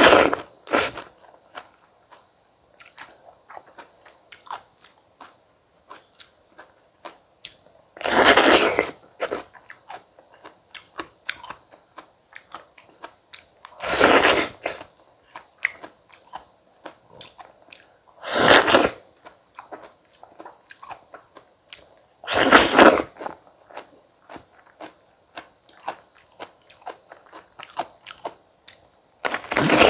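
Close-miked bites into crisp, juicy fresh fruit, six loud crunching bites a few seconds apart, with wet chewing clicks between them.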